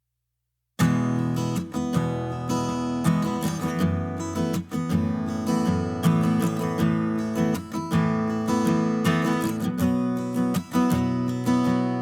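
Background music: strummed acoustic guitar, starting after a brief moment of silence.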